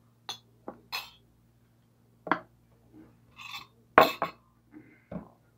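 Tableware being handled at a meal: a string of short clicks and knocks of plates, bowls and cutlery, the loudest about four seconds in.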